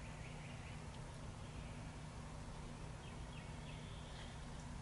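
Faint bird chirps: a few short series of quick, high, falling notes over a steady low outdoor hum.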